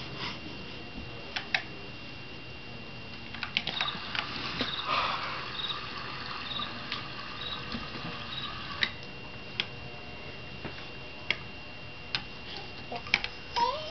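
Scattered knocks and clicks as a baby's feet kick a plastic crib soother toy. From about four to nine seconds in, the kicked toy lights up and plays a stretch of its sounds, with short high chirps repeating about once a second.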